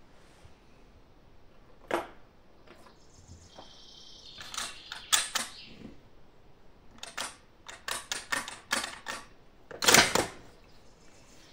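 Bolt of a Yugoslav Mauser M48A bolt-action rifle being worked by hand between shots: a series of sharp metallic clicks and clacks, with a quick run of clicks toward the end and the loudest clack near the end.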